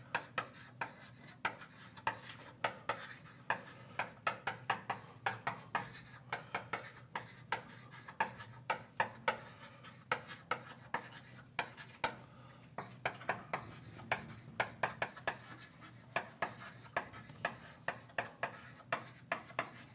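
Someone writing by hand on a surface: a long run of irregular sharp taps and short scrapes, a few a second, over a low steady room hum.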